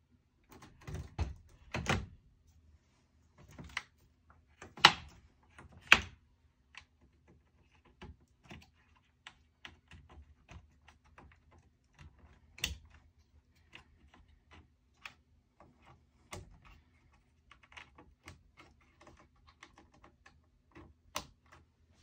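Plastic and metal clicks and knocks of parts and cables being handled and fitted into a Dell PowerEdge R610 server chassis: many small scattered clicks, with a few sharper knocks, the loudest about five and six seconds in.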